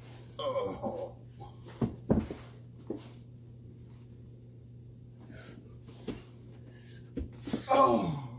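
Play-wrestling on a carpeted floor: a short vocal grunt, a few dull thumps of bodies and feet, and near the end a longer cry that falls in pitch as the boy lands on the man. A steady low hum runs underneath.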